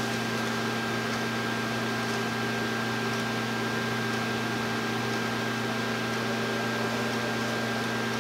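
Steady background hum and hiss with a few fixed tones and no separate sounds; the turning of the microscope's focus knob is not heard.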